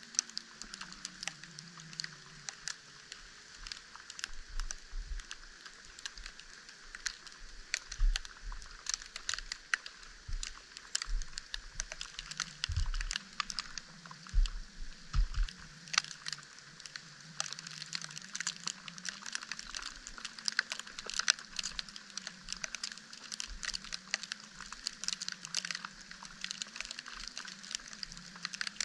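Falling snow ticking on the camera in a dense, steady patter of tiny clicks, with a few low thumps in the middle.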